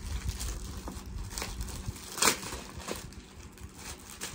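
Clear plastic bag and paper instruction leaflet crinkling and rustling as the leaflet is pulled out of the bag. The rustles come irregularly, with one louder crackle a little past two seconds in.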